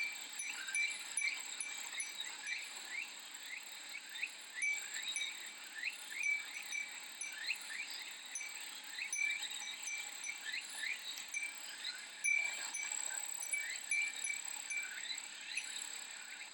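Cicadas buzzing in a steady summer chorus, thick with short, quick chirps, and a Japanese wind chime (furin) tinkling lightly.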